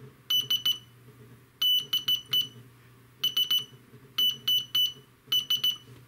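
Piezo buzzer on a breadboard giving high-pitched beeps as a straight telegraph key is keyed in Morse code: five groups of short and long beeps, the last three spelling S-O-S.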